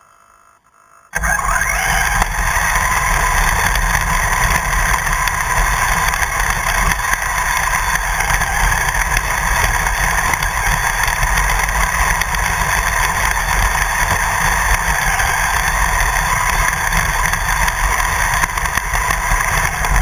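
Radio-controlled car driving fast over grass, heard from a camera mounted on the car: steady motor and drivetrain whine mixed with rushing wind and rumble from the wheels on the turf. It starts about a second in, after a brief silence.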